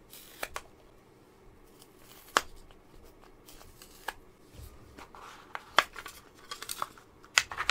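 Rigid clear plastic packaging handled and prised open by hand, making sharp clicks and snaps at irregular intervals with some light rustling.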